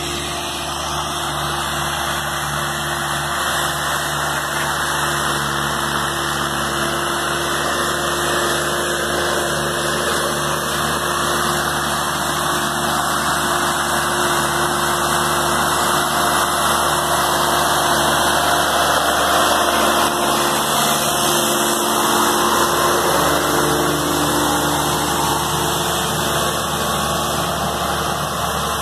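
Mahindra 4025 tractor's diesel engine running steadily while pulling a disc harrow through soil, growing louder as it draws near and then easing slightly near the end.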